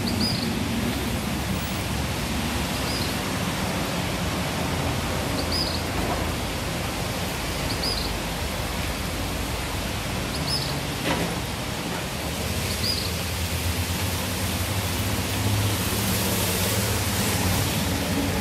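Steady outdoor background noise, an even rush with a faint low hum under it, and a short high chirp that repeats about every two and a half seconds through the first part.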